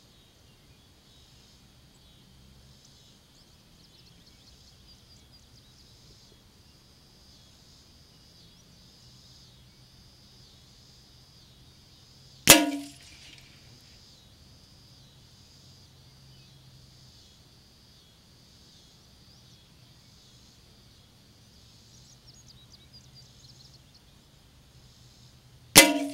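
Two single shots from a Savage Mark II FVSR bolt-action .22 LR rifle, each a sharp crack with a short ringing tail, about halfway through and again near the end.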